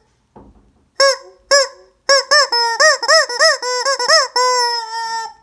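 Squeeze rubber 'screaming chicken' toy squawking: two single squawks, then a quick run of about ten short ones, ending in one long drawn-out squawk.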